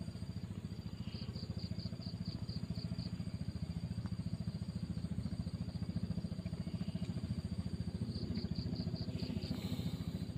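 An engine running steadily with a fast, even low thudding. Two short runs of high, quick chirps sound over it, one early and one near the end.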